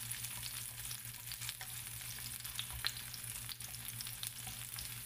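Chopped shallots, garlic, kencur and red bird's-eye chillies sizzling in a little oil in a wok as they are sautéed, a steady hiss with scattered crackles and pops.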